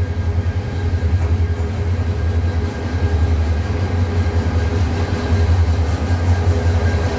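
Diesel locomotive 2921 running light as it rolls slowly toward the listener: a steady low engine rumble with a faint steady whine above it, growing slightly louder as it draws near.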